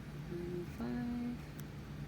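A person humming briefly: a short low note, then a slightly longer held note, over a steady low background hum.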